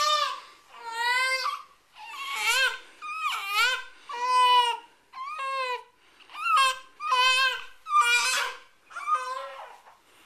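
Baby crying in a string of about ten short, high-pitched wails, roughly one a second, each rising and falling in pitch.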